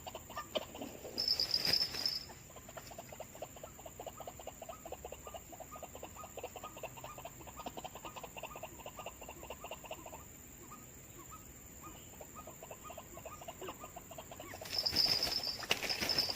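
White-breasted waterhen calling: a rhythmic run of short, repeated notes, about two to three a second, that stops about ten seconds in. A steady high chorus of night insects runs underneath. Two louder bursts of noise with a high buzzing tone come about a second in and near the end.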